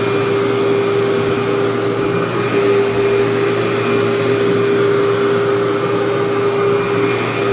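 Workhorse vacuum running steadily with a constant hum, worked over a short polyester shag carpet.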